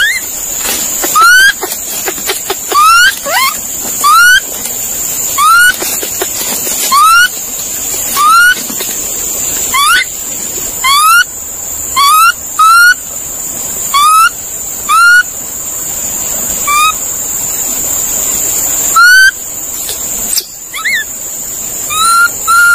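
A monkey calling over and over: short rising whoop-like calls, one every second or so, pausing briefly twice near the end. A steady high-pitched whine runs underneath.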